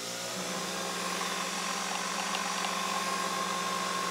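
Coffee maker brewing: a steady mechanical hum that slowly grows louder.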